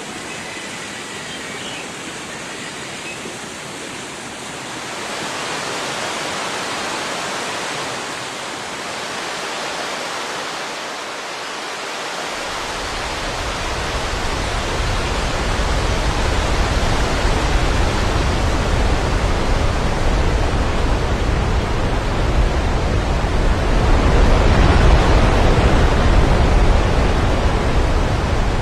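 Roar of the Velo de Novia waterfall at El Chiflón: a steady, dense rush of falling water. A deep rumble joins it about halfway through, and the sound grows louder toward the end.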